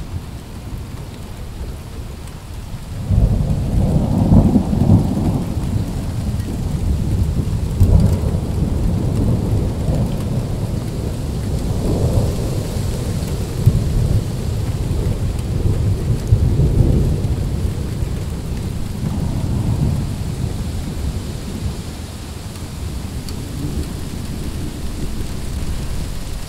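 A long roll of thunder breaks about three seconds in and rumbles on in swelling waves for some twenty seconds before dying down, over steady rain.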